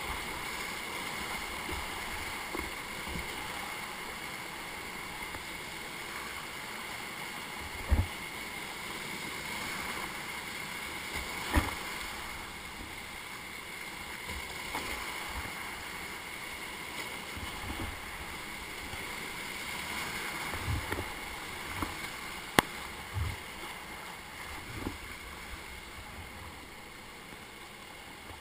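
Whitewater rushing steadily around a kayak running a steep rapid, with a few sharp knocks scattered through it, easing slightly toward the end as the water calms.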